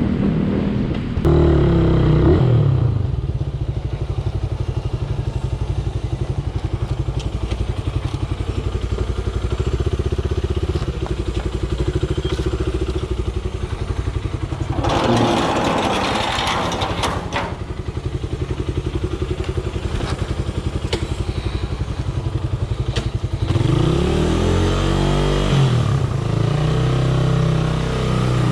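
Motor vehicle engine running steadily, revving up about a second in and again near the end with a rise and fall in pitch. A brief rush of noise comes around the middle.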